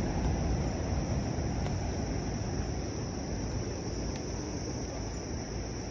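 Insects droning steadily on one high-pitched note, over a low rumbling noise.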